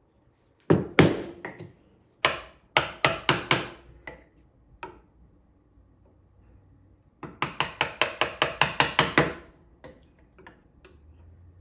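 Wooden mallet striking a chisel, chopping waste from dovetail sockets in a walnut board: sharp knocks in groups, with a quick run of about five and later a fast run of about a dozen lighter taps.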